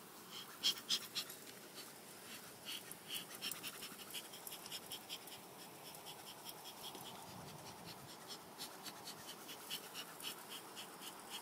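Quick, uneven scratching and clicking, several a second, as wooden beehive parts are handled.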